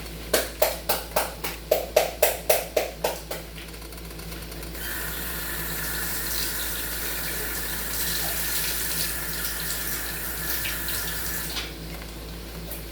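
About a dozen quick, sharp knocks, roughly four a second, as a bell pepper is smacked with a knife to beat the seeds out. Then a kitchen tap runs steadily for about seven seconds and cuts off suddenly.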